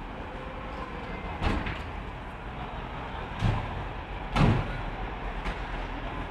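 Railway station ambience: a steady rumble, broken by three short, loud clunks, the first about a second and a half in and the other two about two and three seconds later.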